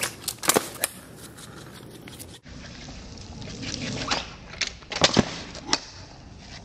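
Kick scooter rolling over wet asphalt, with several sharp clacks of the deck and wheels striking the pavement: two just after the start and a quick cluster about five seconds in.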